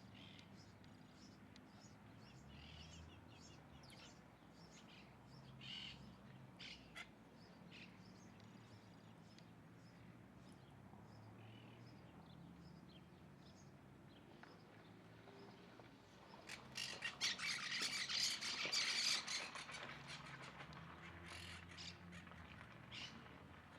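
Wild birds calling: scattered short high calls, then a louder, dense run of rapid calls lasting about four seconds, starting about two-thirds of the way in.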